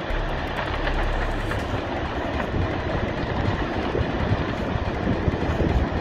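Continuous rumbling of a large landslide as earth, debris and houses slide into the sea.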